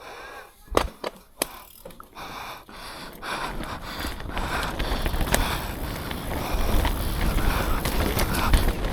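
Mountain bike descending a dirt trail: a few sharp clacks and rattles in the first couple of seconds, then tyre rumble and wind noise on the camera microphone that grow steadily louder as speed builds.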